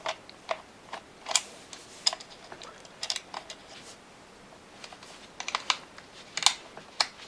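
Irregular light clicks and taps from handling the hard plastic head shell of a 1992 Playskool Teddy Ruxpin, with a screwdriver working at the screws that hold the head together.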